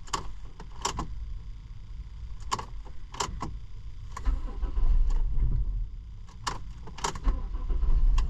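Keys jangling and clicking at the ignition, then a 2007 Dodge Caravan's 3.3-litre V6 starting. It runs for a second or so about four seconds in, drops away, and catches again near the end.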